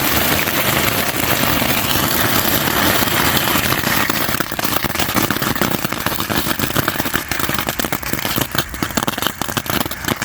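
Several firework tank novelties burning together: a steady hissing spray of sparks, turning into dense rapid crackling from about four seconds in.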